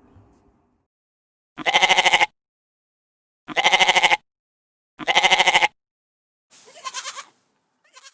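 Goat bleating. Three loud, quavering bleats come about a second and a half apart, then a softer one near the end.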